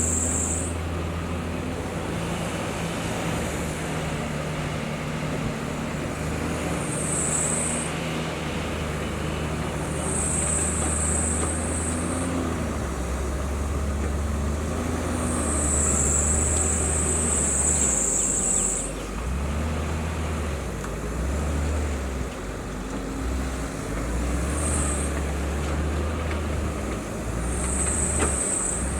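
Heavy construction machine's diesel engine running, its drone dipping and rising a few times as the load changes. Short spells of high hissing come and go over it.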